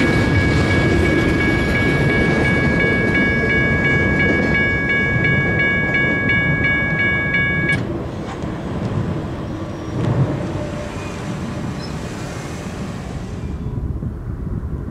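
Railroad grade-crossing bell ringing steadily, with the rumble of the tail of a double-stack container freight train rolling away beneath it. The bell cuts off abruptly about eight seconds in as the crossing gates go up, leaving a quieter low rumble.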